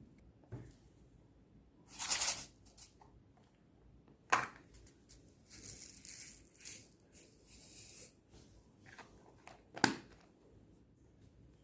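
Clear slime being worked by hand, giving three loud crackly squelches and pops about two, four and ten seconds in, with softer sticky rustling between them.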